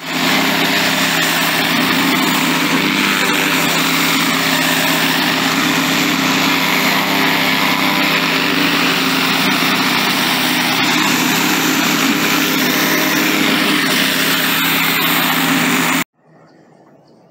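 Pressure washer running steadily while its 15-inch rotary surface cleaner sprays water over concrete, a steady machine drone under a loud water hiss. It cuts off suddenly near the end.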